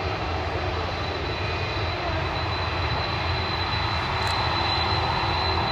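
Jet airliner engines running: a steady rumble that slowly grows louder, with a thin steady high tone over it, as the plane heads out to take off.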